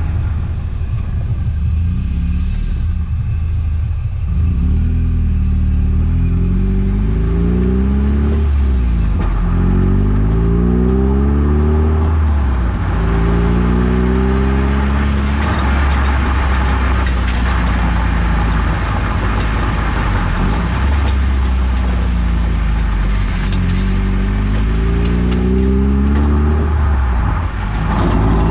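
Eunos Roadster (Mazda MX-5) driving, its four-cylinder engine note climbing again and again as it accelerates, over road noise. Partway through, a metallic rattle ('gara gara') joins in, which the owner suspects is something metal touching.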